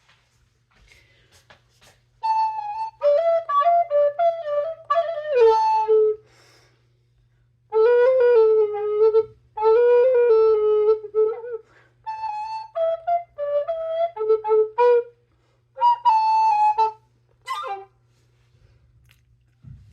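A flute-like wind instrument playing a short melody in separate phrases, with pauses of a second or two between them. A few notes slide down in pitch.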